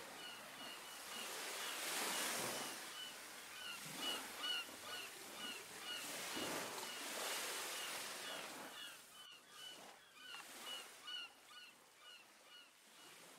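Faint ambient soundscape: rapid short chirping calls over a soft, surging hiss, fading away near the end.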